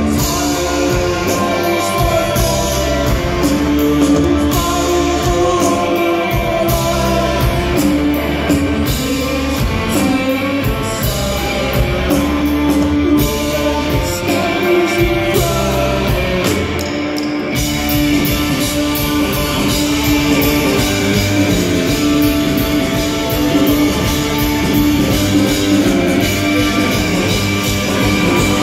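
Psychedelic rock band playing live and loud: electric guitars, drums and a singing voice in one steady, continuous wall of sound, heard from the audience.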